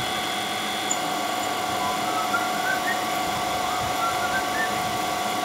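Milling machine spindle running steadily with a constant whine while a twist drill bores into a metal oil pump block.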